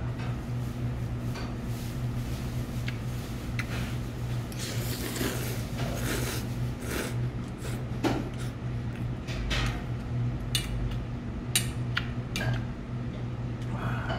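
A man slurping hot kalguksu noodles, with a long noisy slurp about five seconds in, and short clicks of metal chopsticks against the metal bowl. A steady low hum runs underneath.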